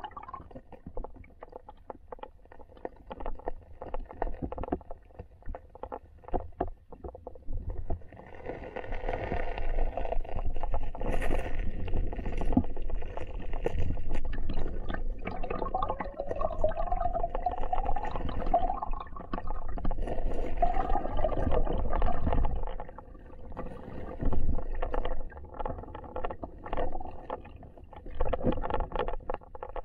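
River water heard underwater through an action camera's waterproof housing: a muffled rumble and gurgle with scattered clicks and knocks, growing louder about eight seconds in and easing again in the last quarter.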